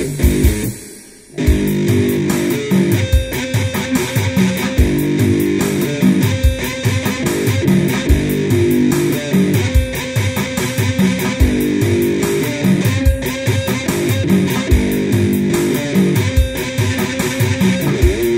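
Electric diddley bow, a one-string cigar box instrument, played through a Roland Micro Cube amp: fast, rhythmic picked riffs on the single string in a metal style. There is a short pause about a second in.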